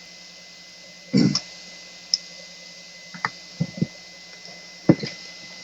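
A few scattered light knocks and clicks of objects being handled on a workbench, about six in all, over a steady faint hum with a thin high whine.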